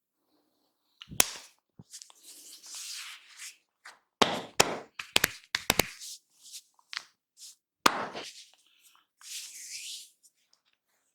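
Barber's hands working a head massage: sharp cracks and slaps on the head, with a quick cluster of them in the middle, and soft rustling of hands rubbing through hair in between.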